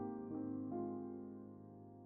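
Soft, slow keyboard music: held chords, with new notes coming in a few times, gently getting quieter.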